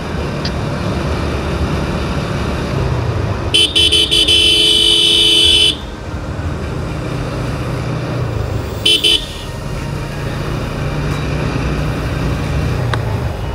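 Motorcycle running along a road with a steady low engine and wind rumble. A horn sounds for about two seconds, then gives a short toot a few seconds later.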